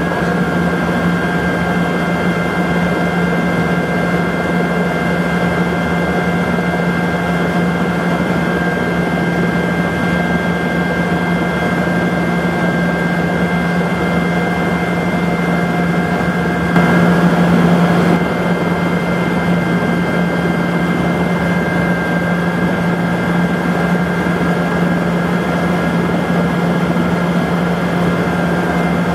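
Eurocopter EC120 Colibri helicopter running on the ground, heard from inside the cabin: a steady turbine and rotor hum with several steady whining tones above it. About two-thirds of the way through it swells briefly louder for about a second.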